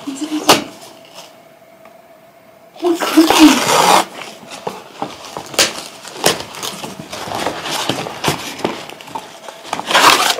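Cardboard and paper packaging of a fragrance gift box being handled and worked open: rustling, scraping and sharp clicks, with a loud burst of rustling about three seconds in and another near the end.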